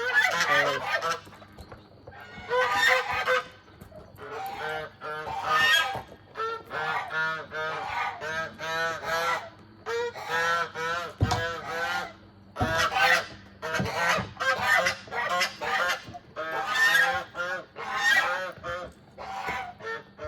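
Domestic goose honking over and over, in loud runs of harsh calls every second or two. A couple of short low thuds come a little past the middle.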